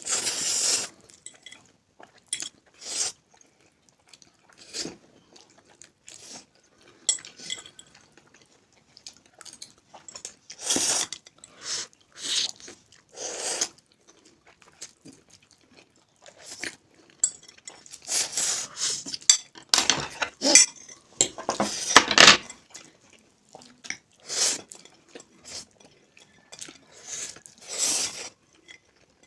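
People eating spicy instant noodles fast: forks clinking and scraping on bowls, with chewing, in scattered short bursts.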